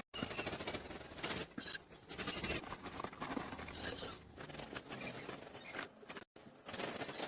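Hand-work scraping and scratching with many small clicks, broken by two abrupt cuts: one at the very start and one a little past six seconds.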